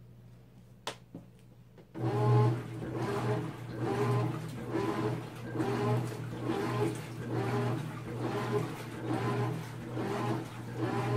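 GE GTW330ASK4WW top-loading washer starting its wash agitation about two seconds in, after a faint click or two: a motor hum and water sloshing, pulsing with roughly three agitator strokes every two seconds. It is too noisy for a washing machine, the same wash-cycle racket for which the owner's first machine of this model was judged defective.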